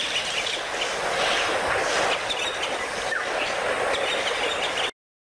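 Steady rushing background noise with no clear pitch, cutting off suddenly near the end.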